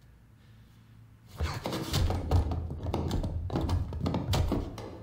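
Film soundtrack: a run of irregular thuds and knocks over a low rumble, starting about a second and a half in and dying away near the end.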